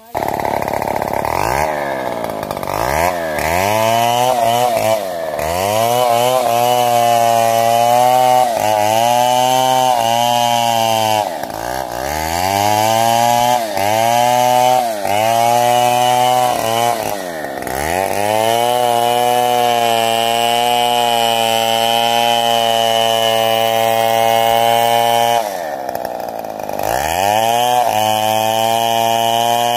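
Stihl 070 chainsaw's large two-stroke engine running hard while cutting into the trunk of a big sengon tree. Its pitch repeatedly sags as the chain is loaded in the wood and climbs back, holding steady for a stretch in the middle.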